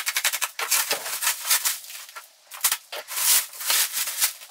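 Plastic bubble-wrap packaging crinkling and crackling as it is pulled and handled, with a brief lull a little past halfway through.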